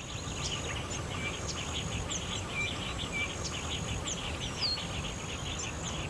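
Wild wetland ambience: birds chirping with short down-slurred calls over a dense high chatter and a thin, steady high insect buzz that breaks off now and then, with a low rumble underneath.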